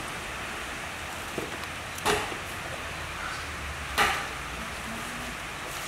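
Two sharp knocks about two seconds apart over a steady background hiss: the plastic colander of boiled chicken knocking against the steel pot it is draining in.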